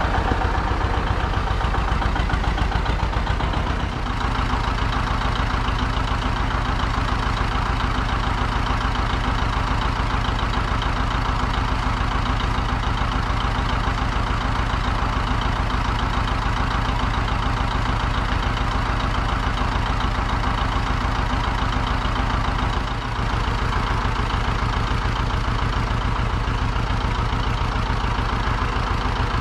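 Vintage John Deere two-cylinder tractor engine running at low speed with a steady, even exhaust beat, as the tractor is driven slowly and backed up. The level dips briefly twice.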